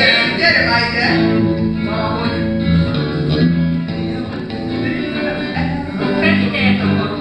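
Live rockabilly jam: an electric guitar and a bass guitar play while several people sing along.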